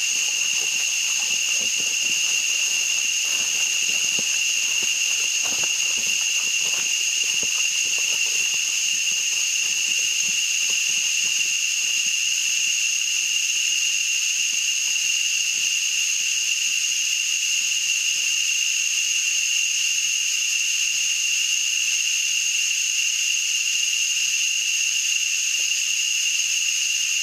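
A steady, high-pitched, unbroken insect drone from the rainforest, holding one pitch throughout. Soft footsteps on the leaf-litter trail sound during the first dozen seconds and fade as the walkers move away.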